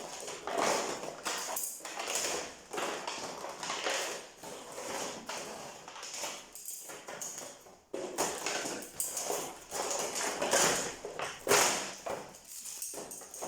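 Packaging being handled during an unboxing: irregular rustling and crinkling, with a few sharper taps.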